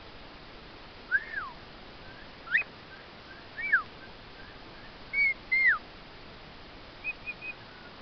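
A series of clear whistled notes, each a short glide that rises and falls in pitch, five or six spread over several seconds, then three quick short high notes near the end.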